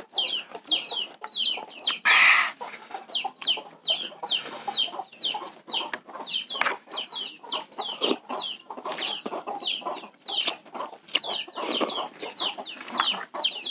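Chickens calling: a stream of short, high, repeated chirping calls with clucking. Over them come small clicks of a metal spoon against a plastic bowl and eating noises, with a louder slurp about two seconds in.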